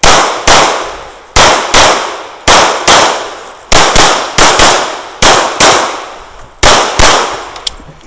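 Competition pistol, a double-stack 1911-style gun, firing about fifteen sharp shots in quick pairs, the two shots of a pair about a third of a second apart. The shots stop about a second before the end.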